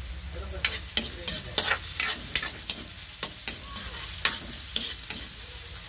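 A spatula scrapes and taps against a wok in quick, irregular strokes, stirring onion, garlic and ginger that sizzle in hot oil.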